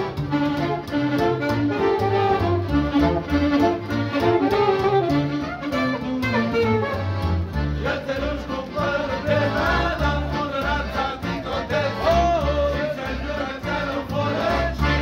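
Live street band of saxophones, accordions and a double bass playing a tune together, with the bass notes on a steady beat under the melody.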